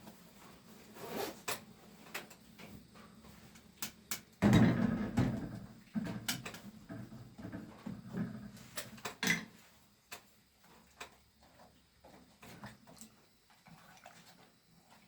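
Scattered knocks and clicks, with a louder thump and rustle about four and a half seconds in.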